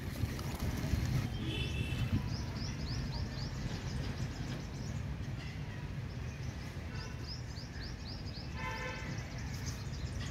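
Birds chirping in two runs of quick, short, falling notes over a steady low rumble.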